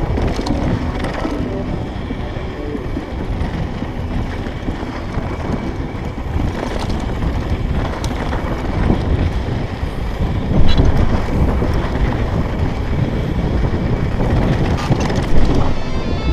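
Mountain bike riding down a dry dirt singletrack: a steady rumble of tyres on dirt mixed with wind on the microphone, and the bike rattling and knocking over bumps, the hardest jolts about ten and fifteen seconds in.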